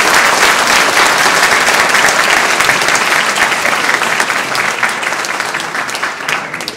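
Audience applauding: a roomful of people clapping, loud at first and gradually dying down near the end.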